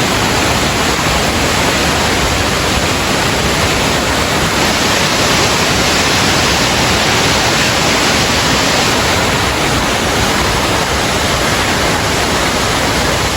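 Tvindefossen waterfall's water falling in a steady, loud rush.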